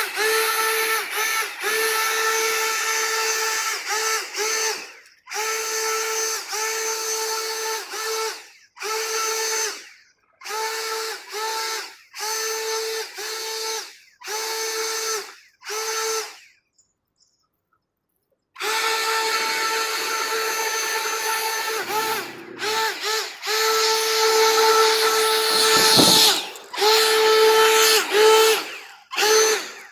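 Leaf blower motor running at a steady high pitch, switched on and off in short bursts, spinning up and winding down each time, with a pause of about two seconds partway through.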